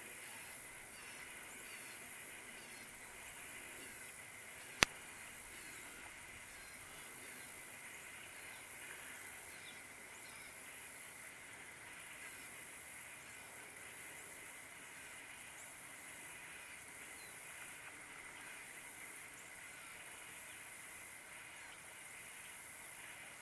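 Faint outdoor ambience: a steady high hiss with a thin, even whine underneath, broken by one sharp click about five seconds in.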